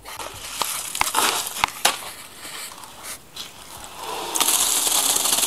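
Gritty scraping of wet concrete mix with a few sharp knocks, then a bucket of wet concrete poured out in a loud, gritty rush about four seconds in.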